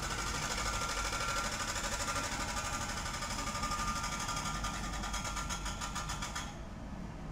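Norfolk Southern diesel freight locomotives passing close by, their engines running with a fast, even clatter. The higher clatter drops away about six and a half seconds in, as the last locomotive goes by and the covered hopper cars begin to roll past.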